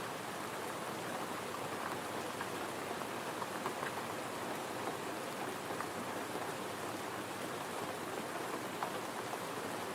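Gentle rain falling steadily, an even patter with scattered louder drop ticks.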